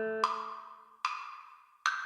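Classical guitar ensemble in a sparse break: a strummed chord rings out and fades, then a light click and two sharp wooden-sounding knocks, about a second in and near the end, each ringing briefly.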